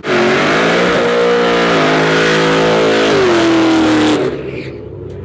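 Drag-racing car engine at full throttle, rising in pitch, holding, then dropping about three seconds in as it shifts gear, before cutting off suddenly just after four seconds in.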